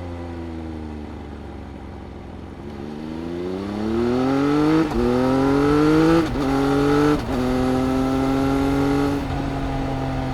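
2018 Triumph Speed Triple RS's 1050 cc inline-three engine through its Arrow exhaust, heard on the bike: it winds down off the throttle, then accelerates hard with three quick upshifts about five, six and seven seconds in, each breaking the rising note. It then holds a steady cruising note that drops slightly near the end as the throttle eases.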